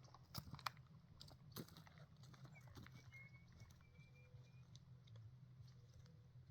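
Faint clicks and light knocks, a few of them in the first two seconds, over a low steady hum. No gunshot is heard.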